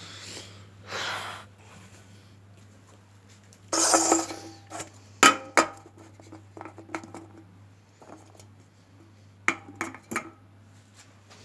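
Scattered clinks and knocks of hard objects being handled, with a louder rustling clatter about four seconds in and a few sharp clicks near the end, over a low steady hum.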